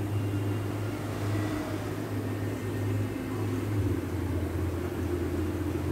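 Steady low mechanical hum whose pitch drops slightly about four seconds in, with a fainter higher hum above it.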